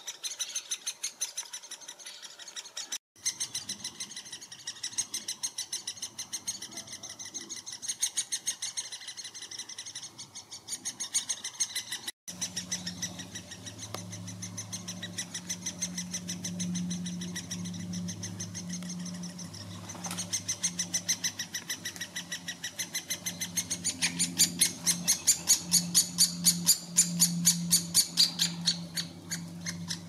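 Great spotted woodpecker nestlings begging from inside the nest hole: a rapid, unbroken chatter of short high calls, several a second, growing louder in the last few seconds.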